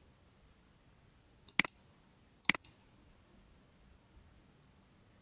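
Two sharp clicks of a computer mouse about a second apart, advancing the presentation slides; otherwise near-silent room tone.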